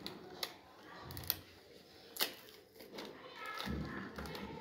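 Cardboard packaging being pried and peeled open by hand, with rustling and a few sharp clicks, the sharpest about half a second, a second and a quarter, and two seconds in.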